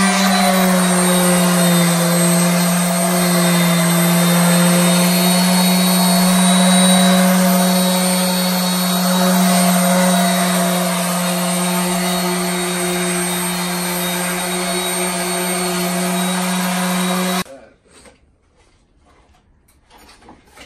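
Electric random orbital sander running steadily with a constant motor hum, its pad scuffing old paint on a wooden coffee table frame to rough it up so new paint will stick. It switches off abruptly near the end, leaving a few faint clicks.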